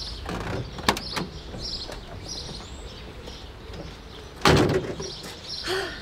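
A taxi's car door clicking open about a second in, then slammed shut about four and a half seconds in. Small birds chirp in the background.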